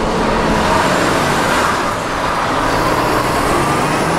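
City street traffic: road vehicles running past, with a heavy truck and trailer passing close near the end.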